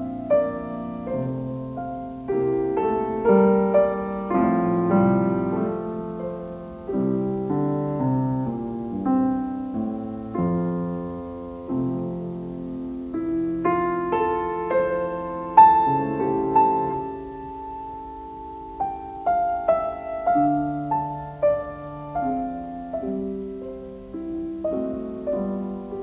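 Background piano music: a slow melody of struck notes and chords, each left to ring and fade.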